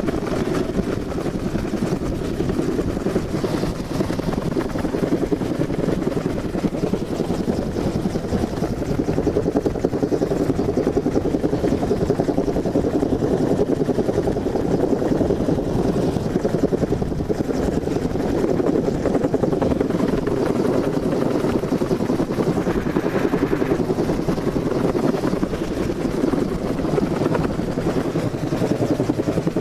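Helicopter running loudly and steadily close by, its rotor and engine noise constant throughout.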